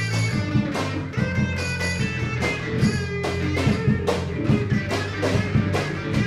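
Live rock band playing an instrumental passage between sung lines: electric guitar over bass and drum kit.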